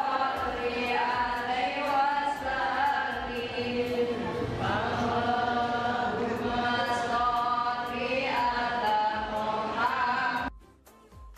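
Devotional vocal music: voices chanting a melody over a steady beat, cutting off suddenly about ten and a half seconds in.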